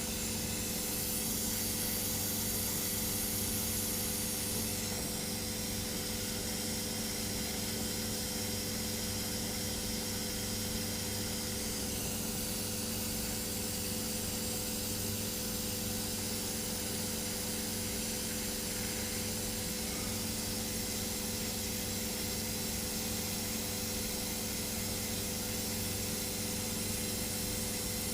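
Hydrogen-oxygen soldering torch flame hissing steadily while heating the parts to cherry red for silver soldering, over a steady machine hum. The hiss grows briefly brighter and higher about a second in and eases back a few seconds later.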